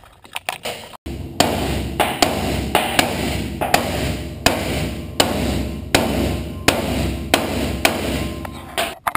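A hammer striking a steel boxing plate inside a car's frame rail, about a dozen sharp blows at a fairly even pace of roughly one and a half a second, starting about a second in. This is driving the plate into position in the rail so it can be tack-welded.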